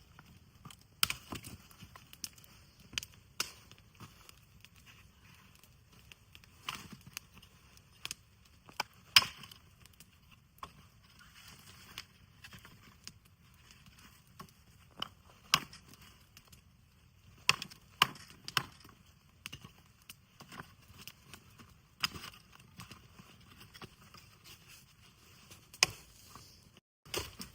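Irregular sharp wooden cracks and knocks, about one every second, some in quick pairs, over a faint low rumble.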